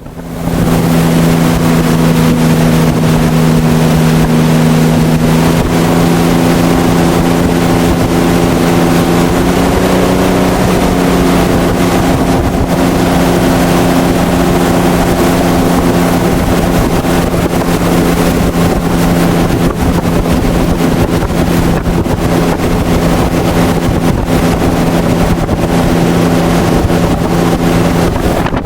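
Ford Essex V6 in a jet boat running steadily under load at about 2700–2900 rpm, driving a single-stage PP Jet65 jet drive while towing a wakeboarder, over a rush of wind and water. The engine note steps up slightly in pitch twice, at about five and ten seconds in.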